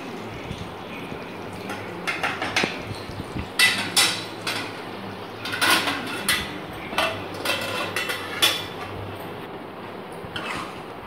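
Steel spoon scraping and clinking against a pan while stirring a thick curry, a run of irregular clatters for several seconds in the middle.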